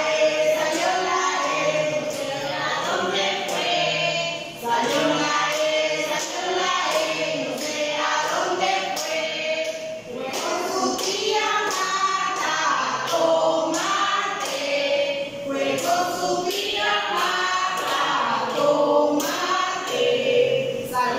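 A small group of women singing together unaccompanied, a children's song about the vowels, with hand claps throughout.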